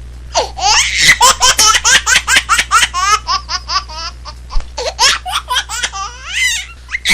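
A baby laughing hard: a long run of quick, high-pitched laughs, about five a second, with a longer drawn-out laugh near the end.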